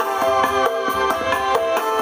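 Live dangdut band music: a quick melody stepping from note to note over bass and drums.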